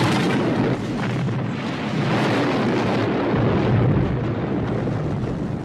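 Film sound effects of explosions and fire: a loud, continuous rumbling blast with no separate distinct bangs.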